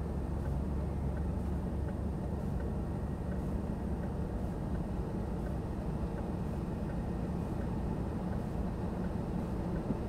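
Steady road and tyre rumble heard inside the cabin of a car being towed along an asphalt highway.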